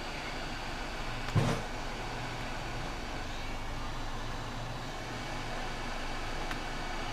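Steady machine whir with a single sharp knock about a second and a half in.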